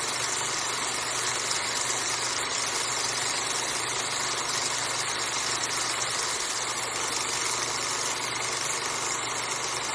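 Film projector running steadily: a continuous motor hum with the rapid fine clatter of the film transport.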